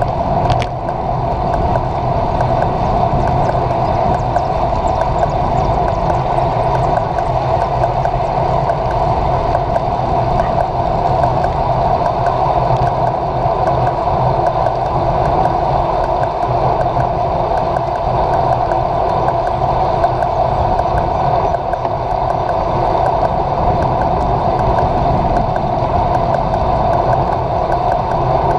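Steady rush of wind and tyre noise picked up by a handlebar-mounted camera on a road bike riding along an asphalt road, loud and unbroken.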